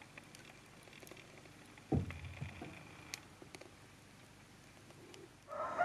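Wood fire burning in a stove, crackling faintly with scattered small snaps, and one dull thump about two seconds in.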